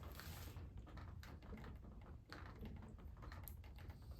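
Faint, irregular light clicks and brief scrubbing hiss as metal engine parts are handled and washed in gasoline.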